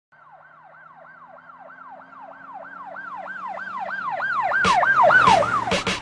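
A siren rising and falling in quick repeated sweeps, about three a second, growing steadily louder. Sharp scratch-like music hits come in near the end.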